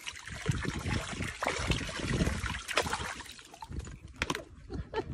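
Water from a garden hose splashing and trickling into a plastic paddling pool, broken by uneven splashes as a dog wades and snaps at the stream.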